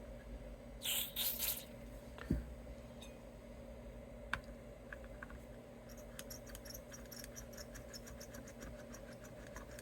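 Quiet small-parts handling at a workbench: two short hisses about a second in, a single knock, then a run of light, rapid ticks over a faint steady hum.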